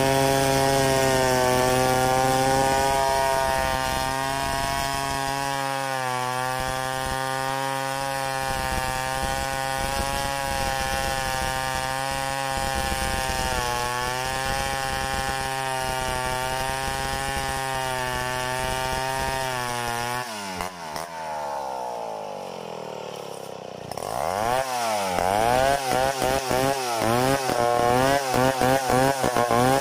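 Stihl 070 two-stroke chainsaw ripping lengthwise through a log, its engine held at a steady high speed under load with a slight waver. About twenty seconds in the engine speed drops away. It revs back up a few seconds later and keeps cutting with the pitch rising and falling.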